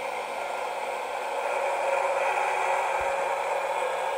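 Electric motor and gearing of a Tekky Toys Shotgun Blast Zombie animatronic whirring steadily as the prop sits up from lying flat, with a low hum that stops just before the end as it reaches the upright position. A single low knock about three seconds in.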